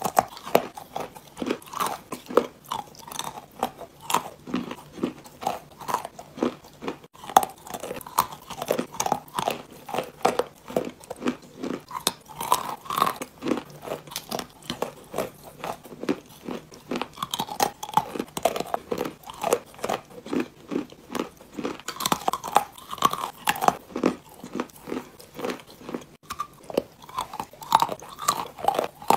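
Wet Ural clay being bitten and chewed: close, crisp crunches coming in a steady run of about two or three a second.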